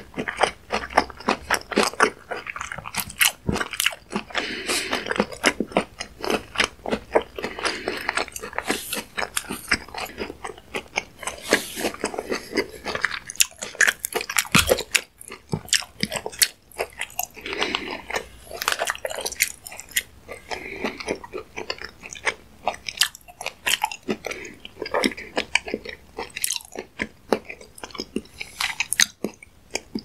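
Close-miked mouth sounds of a mouthful of sushi and fish roe being chewed: a continuous run of irregular wet clicks, smacks and crunchy pops.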